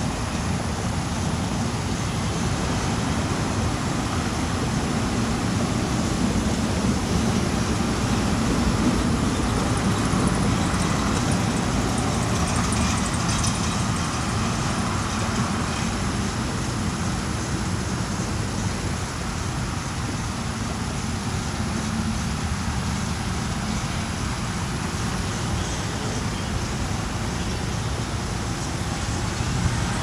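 Steady road traffic noise, a continuous low rumble of passing cars and trucks. The siren is not sounding.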